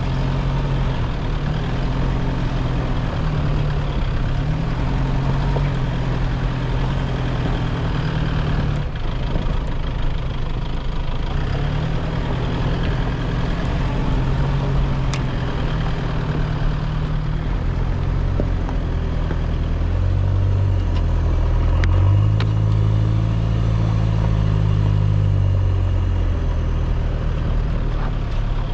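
A 4x4 vehicle driving along a rough dirt track, its engine running with a note that shifts up and down as the revs change, over steady tyre and road noise with a few light knocks. The engine note drops lower and grows louder about two-thirds of the way through.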